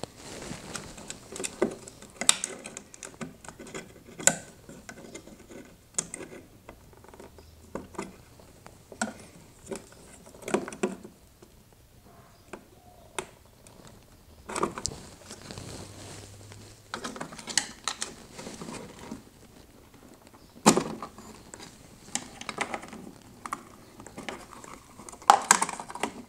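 Irregular small clicks, taps and scrapes of plastic and metal: a flat-blade screwdriver and fingers pressing in the legs of the white plastic anchor pins that hold a GE refrigerator control board, and working the circuit board loose. A few sharper clicks stand out, about two, four and twenty-one seconds in.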